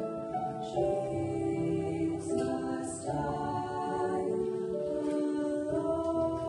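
Two female voices singing a duet together, holding long sung notes that change pitch in steps.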